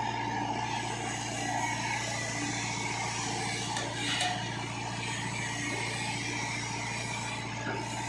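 Tata Hitachi 70EX excavator's diesel engine running steadily as the machine swings and dumps a bucket of soil into a tractor trailer, with a brief clatter of falling soil about four seconds in.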